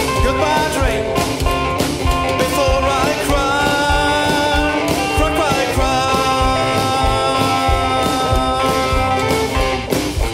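Rockabilly band playing with a steady drum beat, electric guitar and bass, with long held notes through the middle.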